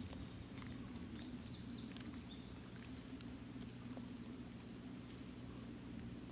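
Insects chirring in one steady, continuous high tone, with a low steady rumble beneath.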